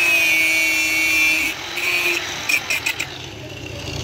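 Angle grinder grinding the steel of a knife near its bolster, throwing sparks: a steady high whine for about a second and a half, then a few shorter passes and brief touches before it stops about three seconds in.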